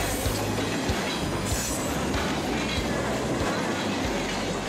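Freight cars of a passing train rolling by: steel wheels rumbling steadily and clacking over rail joints, with a brief high hiss of wheel noise about a second and a half in.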